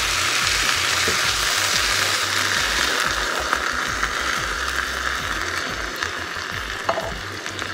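Tomato sauce and ground beef sizzling in a hot skillet as canned diced tomatoes are poured in and stirred, a steady hiss that slowly fades. A few light spoon clicks against the pan come near the end.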